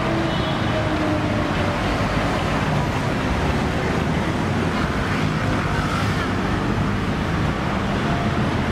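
Steady road traffic noise from a busy street.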